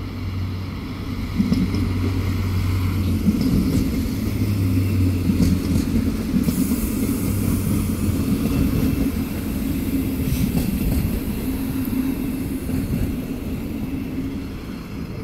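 Alstom Coradia LINT diesel multiple unit passing close by: a steady diesel engine hum, then a louder rumble of wheels on the rails with some thin high squeals in the middle, easing off near the end.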